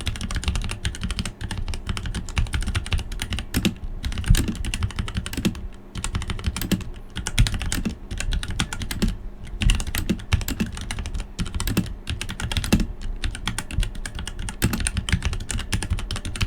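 Dierya EK63 mechanical keyboard with Gateron Red linear switches and PBT keycaps being typed on, its stands folded down: fast, continuous key clacking in runs broken by brief pauses.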